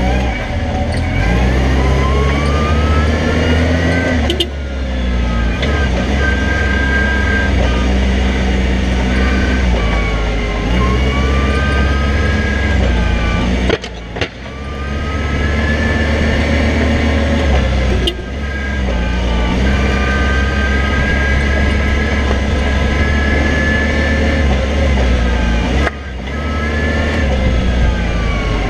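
Toyota forklift driving with a load, its running note and whine rising and falling in pitch as it speeds up and slows. A short knock with a brief dip in the sound comes four times.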